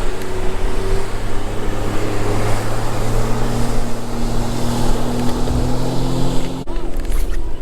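A boat motor running with a steady hum that slowly rises in pitch, over heavy wind and water noise; it cuts off abruptly a little before the end and then picks up again.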